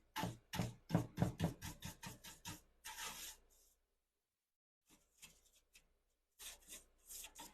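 Quick back-and-forth rubbing strokes, about three a second. They stop about halfway through for a second of dead silence, come back faintly, then grow stronger again near the end.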